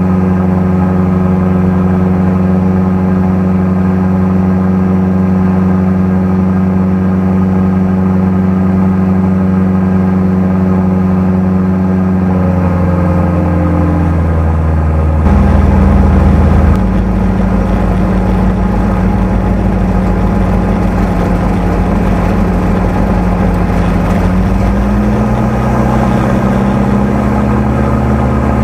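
Streak Shadow microlight's engine and propeller running steadily in flight, heard from inside the cockpit. About halfway through the engine note drops as power comes off, with a brief louder rush of noise just after, and the note rises a little again near the end.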